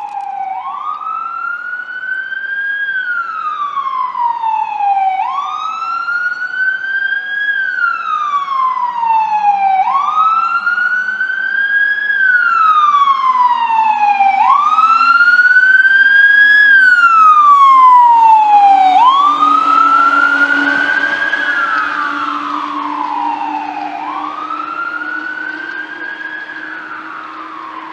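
Siren of a 2012 KME fire pumper sounding a slow wail: rising and falling about every four and a half seconds, with a low engine drone beneath. It grows louder as the truck approaches, is loudest as it passes about two-thirds of the way in, and fades as it moves away.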